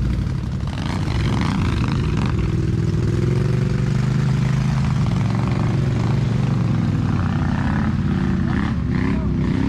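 ATV engine running hard in a deep mud rut. Its pitch rises over the first few seconds, holds, then wavers near the end.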